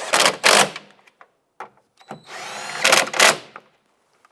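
A cordless power driver running down nuts in short runs. One run ends about half a second in, and a second run of about a second and a half, rising in pitch, starts about two seconds in.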